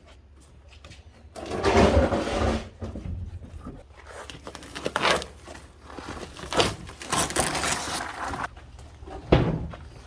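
Irregular rustling and scraping with a few sharp knocks as debris is cleared from a stripped-out car interior, starting about a second in.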